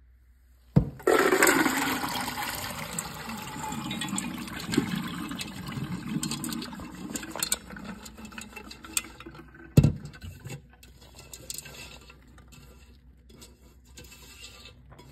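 Soaking water and soaked pinto beans poured from a steel pot into a metal colander in a sink. A rush of draining water starts suddenly about a second in and tapers off over several seconds, with beans clattering and a sharp knock of metal on metal about two-thirds of the way through.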